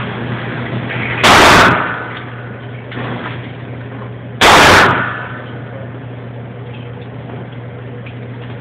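Two loud gunshots about three seconds apart.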